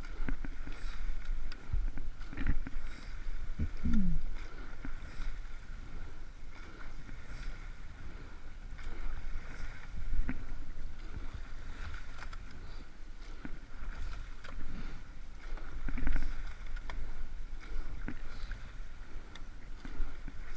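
A sweep-oared rowing shell under way: the oars knock in their gates and the blades work the water stroke after stroke, over a steady rush of water and wind noise on the microphone.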